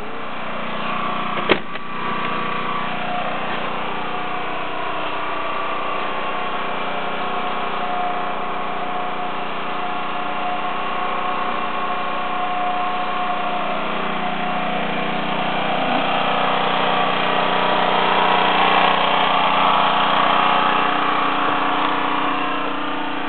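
An engine running steadily at idle, with one sharp click about a second and a half in and a slight swell in level later on.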